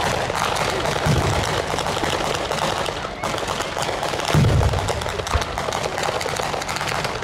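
Ground-level fireworks battery (batteria alla bolognese) going off: a dense, rapid crackle of firecracker reports, with heavier booms about a second in and again past four seconds.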